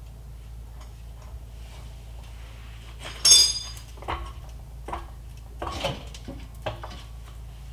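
Metal hand tools clinking and clanking as they are picked up and set down: one ringing clank about three seconds in is the loudest, followed by several lighter clinks.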